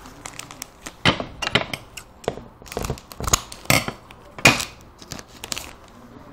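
Foil wrapper of a trading-card pack crinkling and tearing as it is opened by hand: an uneven run of sharp crackles and rustles, with the loudest ones just past the middle.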